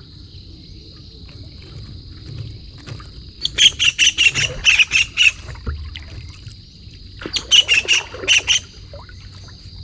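A bird giving two runs of rapid, harsh calls, about five or six notes a second, a few seconds in and again near the end, over a steady high-pitched insect drone.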